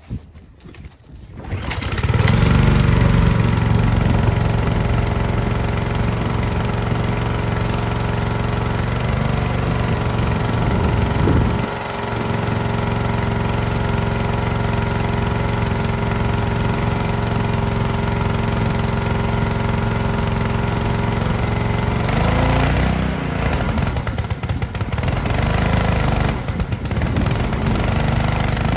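Honda GCV190 single-cylinder engine on a Ryobi pressure washer starts about two seconds in and runs steadily, dipping briefly about eleven seconds in. From about twenty-two seconds in its speed wavers up and down several times as it bogs under load, which the owner puts down to the pump building too much pressure through the unloader valve.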